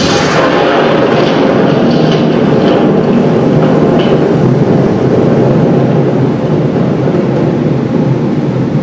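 Loud, steady rumbling noise that fills the low and middle range without a clear pitch or rhythm, with traces of the preceding music dying away in the first second or two.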